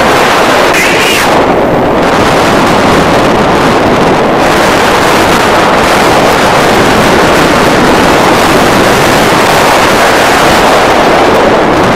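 Loud, steady wind rushing over the microphone of a camera worn by a paraglider pilot in flight.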